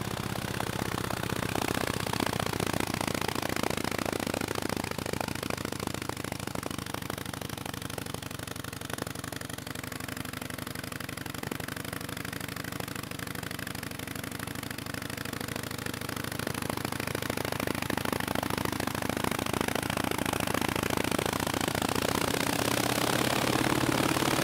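1915 Harley-Davidson V-twin engine running with a rapid, uneven firing beat at a fast idle. It speeds up and gets louder over the last few seconds.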